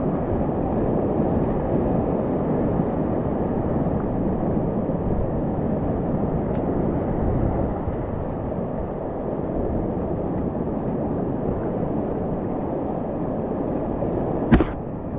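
Whitewater rapid rushing steadily, a deep, even roar of churning water heard from a kayak in the middle of the rapid. A single sharp knock comes near the end.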